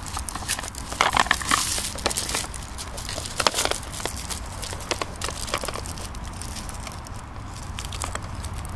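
Handling noise: rustling and scattered light clicks as a firecracker belt is wound around a plastic toy truck, with a busier patch about a second in.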